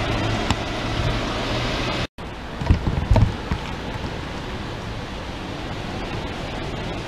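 Volvo B7RLE city bus's diesel engine running steadily as it pulls away on a wet road. It cuts off abruptly about two seconds in, giving way to a few loud thumps and then a steady hiss of wind and distant traffic.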